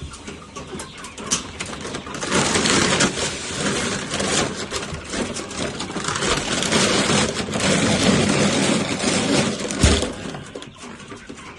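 Chicken feed being poured into a feeder: a steady rushing rattle of grain from about two seconds in, ending with a thump near the end.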